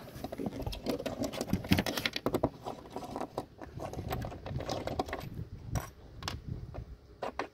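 T-handle hex key turning out the screws of a deck organizer: a run of small, irregular clicks and ticks of metal on metal as the key works in the screw heads.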